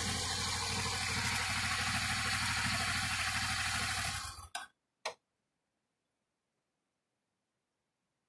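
Motorcycle engine running under a loud, even rushing noise. About four and a half seconds in, all sound cuts off abruptly to near silence, broken by two short clicks just after and one more near the end.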